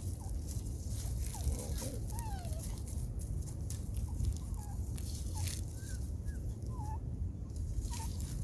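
Scattered short chirping calls, some gliding down in pitch, over a steady low rumble.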